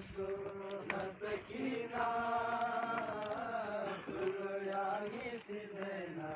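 Men's voices chanting a noha, a slow mourning lament, in long drawn-out sung phrases that swell in the middle.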